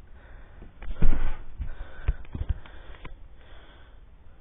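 Yellow Labrador retriever sniffing close to the microphone, in breathy puffs starting about a second in, with a few light knocks among them.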